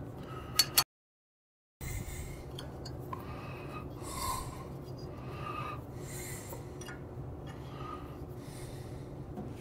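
Hand-tightening of a bandsaw's blade-guide bolt with a small wrench: a small metal click near the start, then soft rasps about once a second over a low steady hum. The sound drops out completely for about a second near the start.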